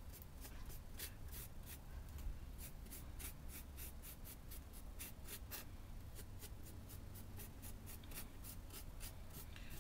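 A flat paintbrush dry-brushing paint lightly over raised hot-glue texture, its bristles scratching in quick repeated strokes, about four a second.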